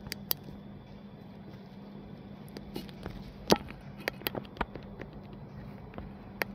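A smartphone being handled: a scatter of sharp clicks and taps, the loudest about three and a half seconds in, as the phone is locked and unlocked, over a low steady hum.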